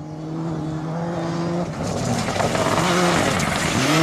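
Mitsubishi Lancer Evolution rally car's turbocharged four-cylinder engine at high revs, getting louder as the car approaches. The revs dip briefly a few times in the second half and climb again near the end.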